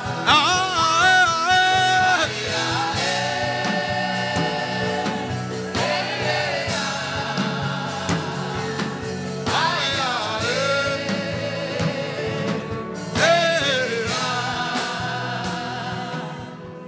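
Gospel worship chant: voices singing long, wavering held phrases over a steady instrumental backing, fading near the end.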